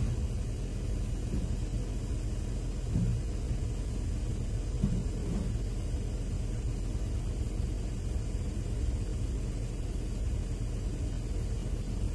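Diesel engine of a motor grader running with a steady low rumble.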